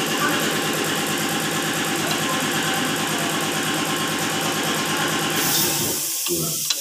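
An engine running steadily with a fast, even pulse, stopping about six seconds in, followed by a light knock near the end.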